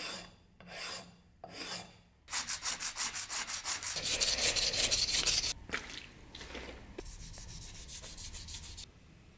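A flat metal file drawn three times across hardened metal putty on a small steel anvil. Then coarse sandpaper is rubbed quickly back and forth over the putty, about six strokes a second, and the sound gets lighter after a sudden stop.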